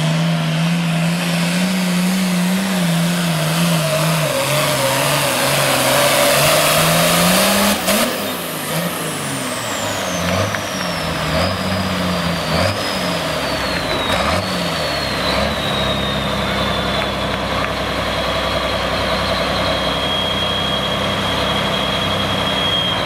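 Turbocharged diesel engine of an International 466 Hot Farm pulling tractor running flat out under load, then coming off the throttle about eight seconds in: the revs swing up and down a few times and settle to a steady idle, while the turbocharger's high whistle winds down in pitch.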